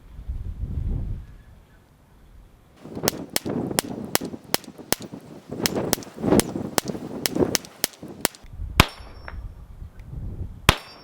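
Taurus TX22 .22 LR pistol firing Remington Golden Bullet rounds in a rapid string of about eighteen shots from about three seconds in, with one last shot near the end. The pistol cycles without a stoppage.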